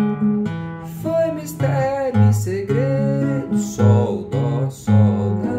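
Nylon-string classical guitar playing the song's chord progression over a moving bass line, with a man's voice singing along from about a second in.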